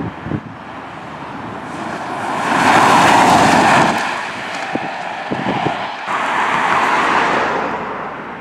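Two road vehicles driving past one after the other, each a swell of engine and tyre noise that rises and fades over a couple of seconds, the first the louder.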